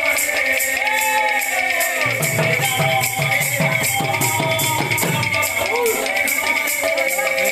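Kirtan band music: slung two-headed barrel drums beaten in a driving rhythm, a high percussion pulse of about four strokes a second, and a melody line above them.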